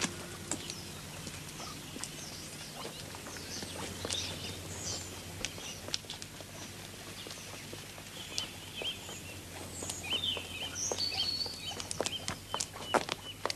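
Small birds chirping and singing, busiest in the second half, over footsteps on a path, the footfalls loudest near the end. A low steady hum runs underneath.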